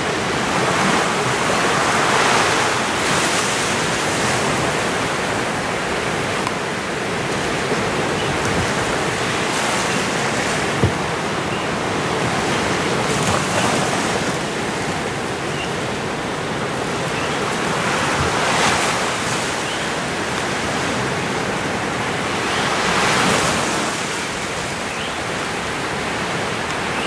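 Steady rush of water on an underwater camera, swelling every few seconds.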